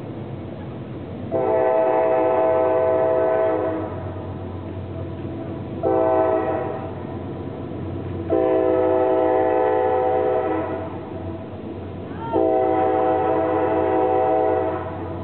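CSX freight locomotive air horn, on a GE AC44CW, blowing four blasts heard from across a river: a long one, a short one, then two long ones. Under the blasts the train runs with a steady low rumble.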